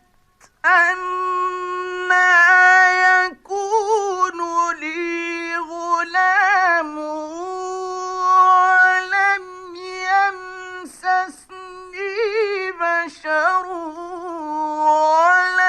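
A man reciting the Quran in the melodic, chanted mujawwad style. He holds long, high notes and ornaments them with wavering turns, after a short pause just after the start.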